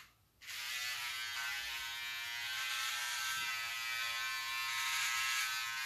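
Electric hair clippers switch on about half a second in and run with a steady buzz as they shave a head.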